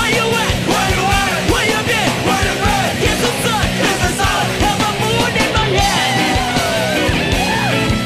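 Loud punk rock music: a vocal line with sliding pitch over a steady drum beat and bass.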